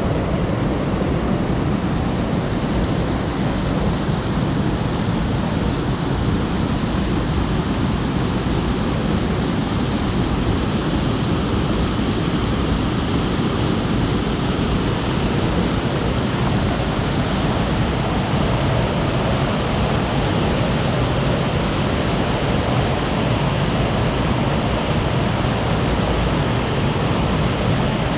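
Waterfall running full after rain: a loud, steady rush of falling water.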